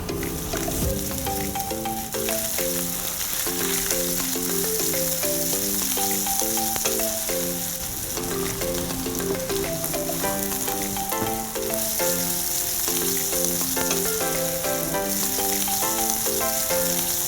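Minced pork and vegetables sizzling steadily in a hot frying pan as they are stir-fried. Light background music with short, bouncing notes plays over it.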